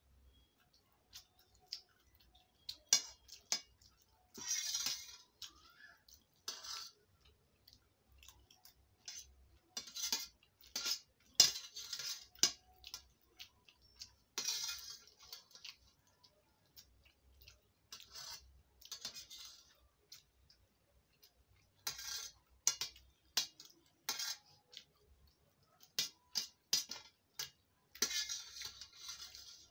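Steel spoons clinking and scraping on a stainless steel plate as pasta is eaten, in irregular clusters of sharp clicks and short scrapes, with sounds of chewing.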